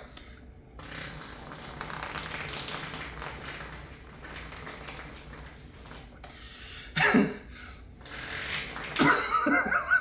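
Homemade armpit fart toy, breath blown through a straw and tube into the armpit: a long airy rush of air, then a short loud fart sound about seven seconds in and another sputtering burst near the end.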